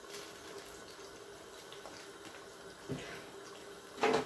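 Tomato and pepper stew sauce simmering in a stainless steel pot, a faint bubbling under a steady low hum. There is a small knock about three seconds in and a louder short clatter near the end.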